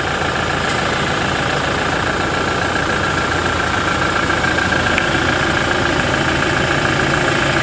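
Toyota Hilux Revo pickup's engine idling steadily.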